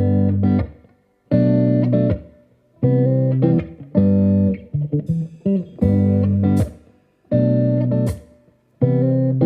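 Background music on plucked guitar: short phrases of notes over a bass, broken by brief pauses about every second and a half.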